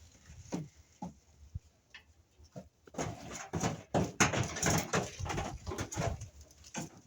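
Goats moving about: a few scattered knocks, then from about three seconds in a busy patter of clattering knocks and rustling.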